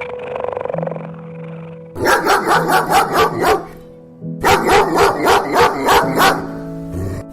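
Dog barking over background music, in two quick runs of about eight barks each at roughly four or five barks a second.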